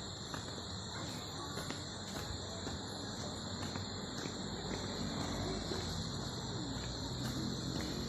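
Steady high-pitched chorus of insects shrilling without pause.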